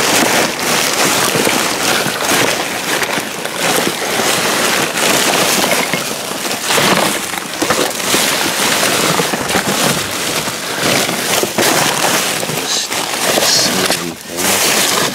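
Plastic trash bags and packaging crinkling and rustling loudly as hands rummage through them and tear them open: a dense, unbroken stream of crackles and rustles.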